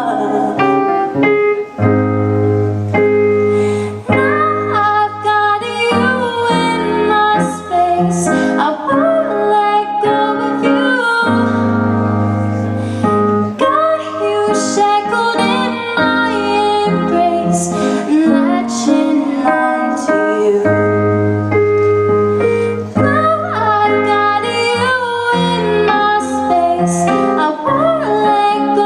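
Piano-led pop ballad accompaniment with a steady low bass, under a female voice singing wavering, bending melodic lines.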